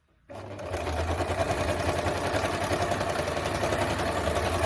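Singer 2282 Tradition plastic-geared household sewing machine starting up about a third of a second in and running at a steady speed, its needle stitching through a thick stack of folded denim and synthetic belt material.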